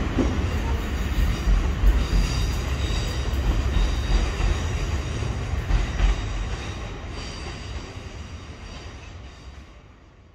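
c2c Class 357 Electrostar electric multiple unit moving away: a low rumble of wheels on track with a faint high squeal, fading steadily over the last few seconds.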